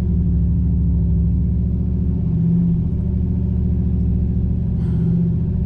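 The rear-mount turbocharged 6.0-litre V8 of a 2004 GMC 2500HD pickup running at a low, steady engine speed: a deep, even engine note with no revving.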